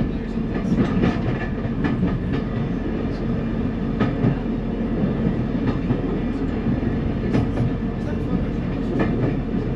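NER Autocar railcar running along the line, heard in its driving cab: a steady rumble and hum of the running gear and power unit, with irregular sharp clicks and knocks.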